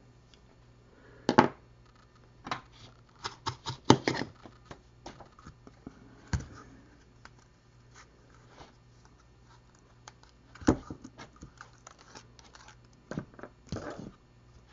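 Scattered clicks, taps and short scratching sounds of small tools and a flight-controller board being handled at a soldering bench, with a few sharper knocks about a second, four seconds and ten seconds in.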